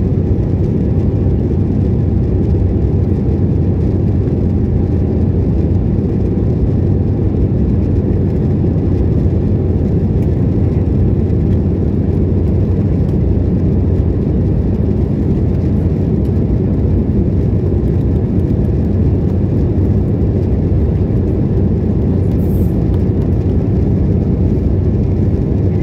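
Steady, loud low rumble of engine and airflow noise inside an aircraft cabin in flight.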